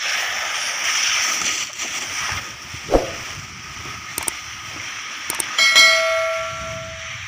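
Subscribe-button animation sound effect: a rushing hiss and a quick swoosh, two sets of mouse clicks, then a bell chime that rings and fades out near the end.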